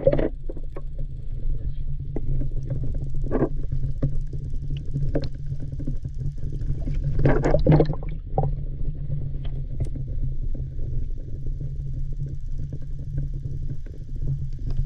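Muffled underwater rumble picked up by a camera held below the surface. A few short knocks and water noises over it, the biggest cluster about halfway through.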